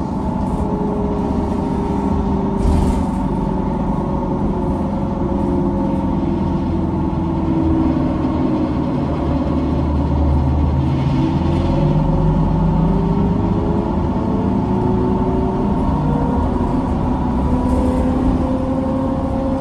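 Interior sound of a 2004 Neoplan electric trolleybus driving: several motor whines that slide up and down in pitch with the bus's speed, over a steady road rumble. One whine rises near the end as the bus speeds up.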